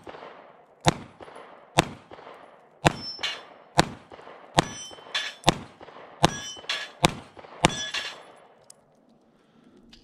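Smith & Wesson CSX 9mm micro-compact pistol firing about a dozen shots, roughly a second apart at first and then quicker, with the clang and ring of steel plate targets being struck after many of the shots.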